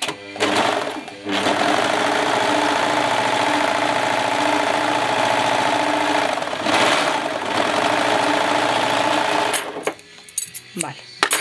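Brother 1034D serger (overlocker) running at a steady speed as it stitches and trims a seam in fabric, with a short dip about a second in. It stops near the end, followed by a few sharp clicks.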